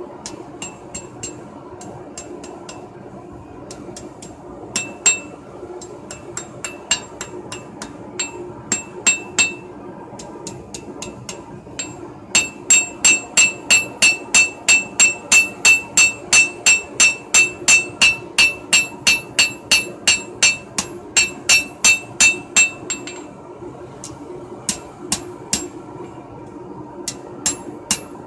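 Hand hammer forging a red-hot steel knife blade on an anvil, each blow ringing. The blows are irregular at first, then come in a steady run of about three strikes a second for roughly ten seconds, then a few spaced blows again near the end.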